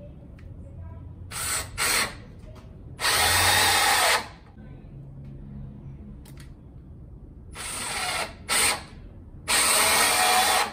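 Einhell 18V cordless drill/driver driving screws into a wooden block. It makes two runs, each starting with a short rising spin-up and a quick blip of the trigger, then about a second of steady full-speed running before stopping.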